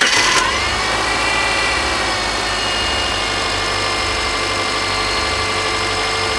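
Freshly rebuilt Subaru EJ25 SOHC 2.5-litre flat-four engine just fired on its first start. Its speed settles within the first second or so into a steady, smooth idle with no knock. The owner hears a small exhaust leak in it.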